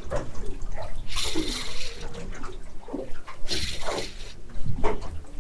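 Water splashing in short bursts, two or three times, over a steady low rumble.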